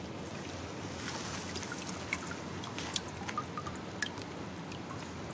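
Liquid dripping and splashing back into a plastic bucket as a preserved human brain is lifted out of it by a gloved hand: scattered small drips over steady background noise.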